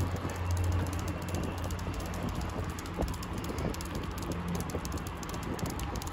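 Wind rumbling on a handheld phone microphone, with scattered soft footsteps on a paved trail.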